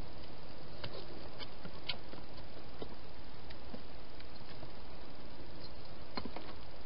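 Hedgehog feeding in a plastic feeding box: scattered small crunching clicks, several in the first few seconds and two more about six seconds in, over a steady hiss.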